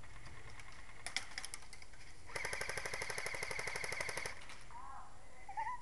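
Airsoft gun firing on full auto: a short burst of about half a second, then a longer burst of about two seconds of rapid mechanical clicks.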